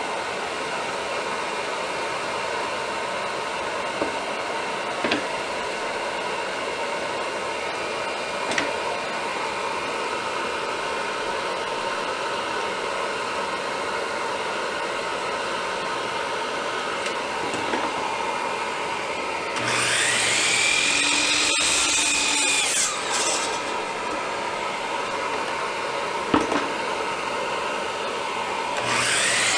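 Hercules 15-amp 12-inch sliding compound miter saw motor spinning up with a rising whine about two-thirds of the way through, running for a few seconds and winding down, then spinning up again near the end. Underneath is a steady motor drone, with a few small knocks and clicks.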